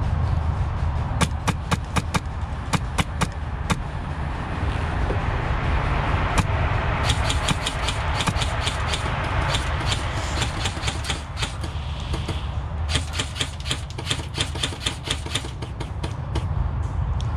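Airsoft guns firing: sharp cracks, a scattered handful at first, then long rapid strings of shots over the second half. A steady low rumble sits underneath.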